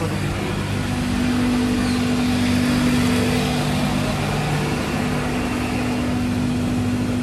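Steady drone of sugar-mill machinery, a continuous rushing noise with a few held humming tones, like electric motors and pumps running.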